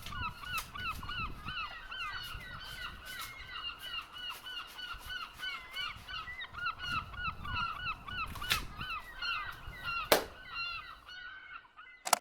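Many birds calling at once, a dense run of short, overlapping honking calls. A few sharp cracks cut through it, the loudest about ten seconds in, and the calling fades just before the end.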